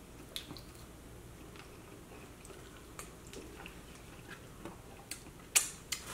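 People chewing chicken wings at close range, with scattered small mouth clicks and smacks; a sharper click about five and a half seconds in is the loudest sound.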